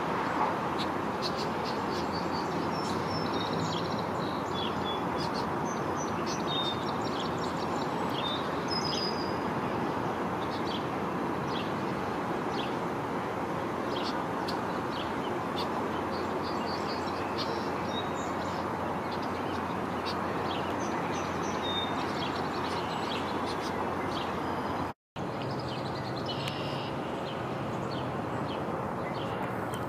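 Birds chirping in short, high calls over a steady background noise, with a split-second dropout about 25 seconds in.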